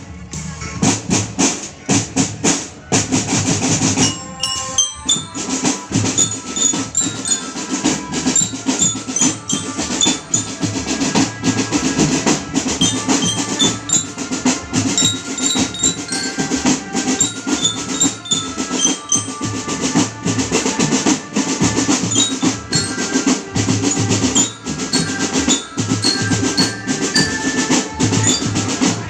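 Marching drum band playing, with snare and bass drums and rolls under a bell-lyra (marching glockenspiel) melody of short high ringing notes. The drumming thins briefly about four seconds in.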